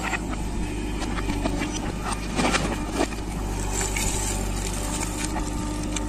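A JCB 3DX backhoe loader's diesel engine running steadily while the backhoe arm swings and works, with a couple of short knocks about halfway through.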